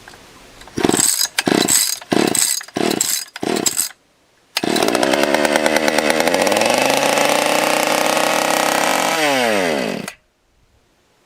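Stihl 020 AV two-stroke chainsaw being pull-started on half-throttle choke: about five quick pulls on the starter cord, then it catches and runs at a steady high speed, sags a little, and winds down to a stop near the end. It dies as if starved of fuel, which the owner takes for it losing gas.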